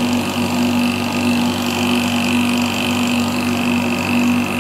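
Damp-proof course injection machine running steadily, its motor giving a constant hum with a thin high whine over it as it pumps damp-proofing fluid through brass lances into the brickwork.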